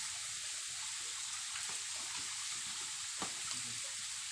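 Waterfall's falling water giving a steady, even hiss, with a faint tick about three seconds in.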